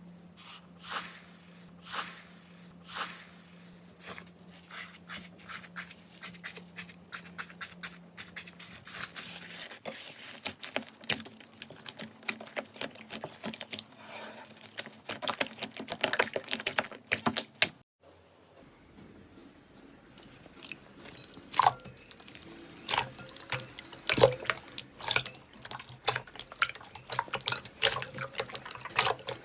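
Slime being squeezed, poked and stretched by hand: a dense run of small wet clicks, pops and crackles. It drops out briefly about eighteen seconds in, then starts again.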